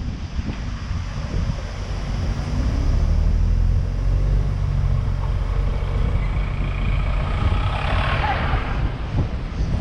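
A road vehicle's engine running steadily, a low hum with wind and road noise over it; a louder rushing noise swells and fades about eight seconds in.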